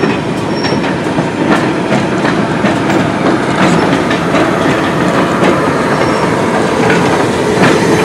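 Railway coach wheels rolling slowly over jointed track and pointwork: a steady rumble with irregular sharp clicks from the rail joints, and a faint brief high squeal near the start.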